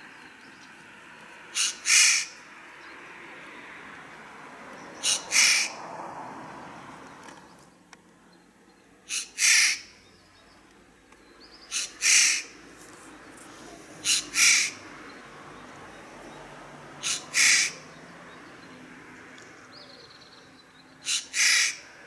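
Eurasian jay screeching seven times, about every three seconds; each call is a short note followed at once by a longer, louder harsh screech.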